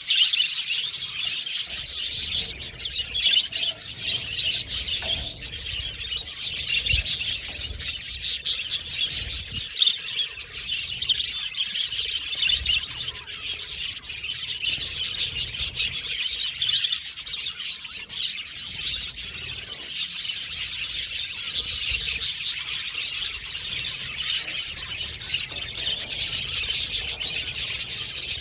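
A colony of budgerigars chirping and warbling together in a dense, continuous chatter.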